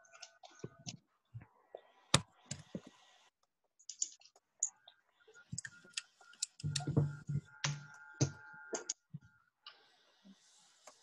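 Computer keyboard typing and clicking: irregular keystrokes, with a denser run of keys in the second half.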